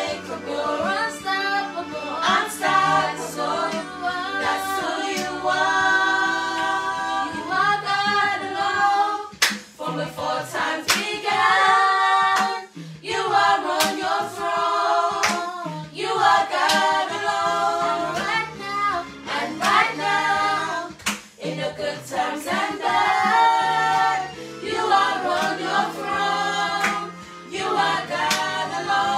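Several voices singing a praise and worship song together, with sharp hand claps among the singing.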